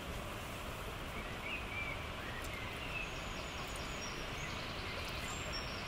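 Steady outdoor background noise, with a few faint, short bird chirps in the first half.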